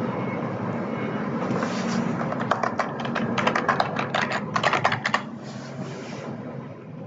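Typing on a computer keyboard: a quick run of key clicks starting about two and a half seconds in and lasting about three seconds, over a steady low background hum.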